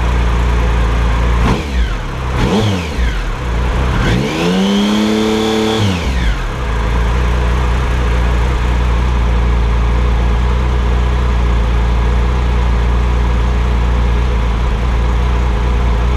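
Triumph Sprint ST 1050's three-cylinder engine, fitted with an aftermarket TOR exhaust, idling steadily. Its throttle is blipped twice briefly about a second and a half in, then revved and held for about two seconds before it drops back to idle. The blips let the engine settle while its throttle bodies are being balanced.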